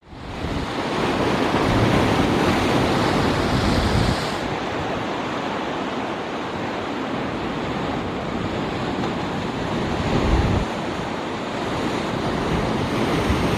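Ocean surf washing steadily, with wind buffeting the microphone in gusts, heaviest in the first four seconds and again briefly near ten seconds.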